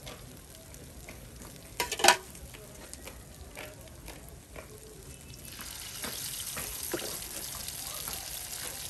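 Two sharp knocks about two seconds in. From about five and a half seconds in, rice batter sizzles loudly in hot oil in a small cast-iron masa pan, a steady hiss.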